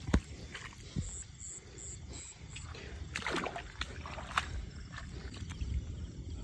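Handling noise with light splashing and a few sharp knocks as crabs are grabbed by hand in shallow water, over a steady low rumble. A faint high chirp repeats five times, starting about a second in.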